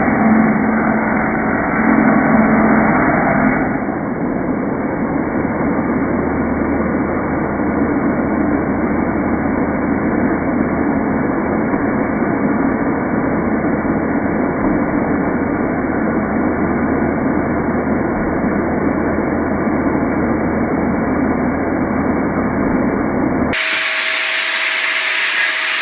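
A power tool running steadily, muffled and dull with no treble. Near the end it cuts abruptly to a clearer, brighter recording of a tool running with a steady whine.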